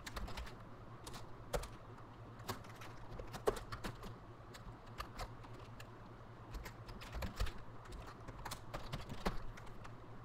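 Faint, irregular clicks and taps of a computer keyboard and mouse, a few spaced out over several seconds, over a low steady hum.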